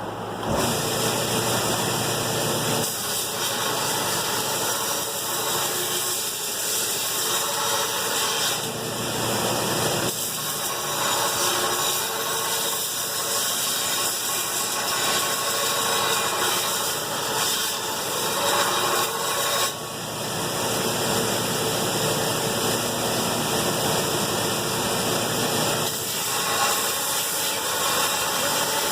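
Grinder grinding the bevels into a steel sword blade: a steady, harsh hiss of abrasive on steel, with a few abrupt shifts in the sound.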